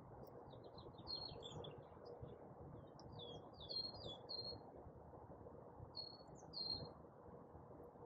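Faint small songbirds chirping and trilling in short high phrases, coming in several clusters, over a low steady background rumble.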